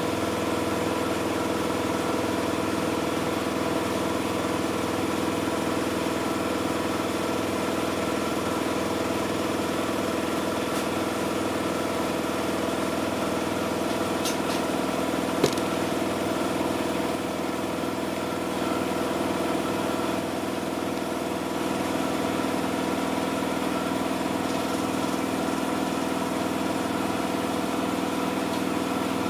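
Miele Softtronic W6544 washing machine running with a steady motor hum and drum whir, its drum loose because the drum spider is broken. A single sharp click about halfway through.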